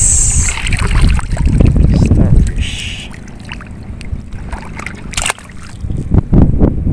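Water sloshing and splashing as hands work a gill net in shallow water, with wind rumbling on the microphone.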